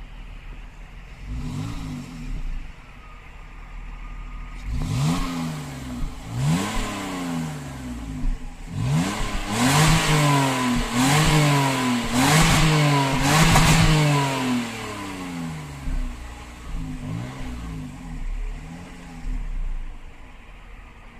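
BMW E39 525i's 2.5-litre straight-six revved from idle through its exhaust: about a dozen throttle blips, each rising and falling in pitch. The loudest revs come in the middle, and smaller blips follow near the end.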